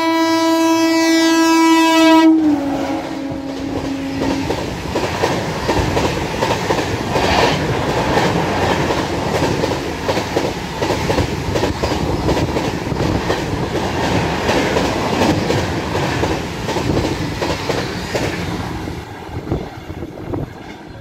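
WAP-7 electric locomotive horn sounding one long blast as the train runs through at high speed, dropping in pitch about two seconds in as the engine passes. The LHB coaches then rush past with a steady, rapid clatter of wheels over the rail joints, which fades near the end as the train recedes.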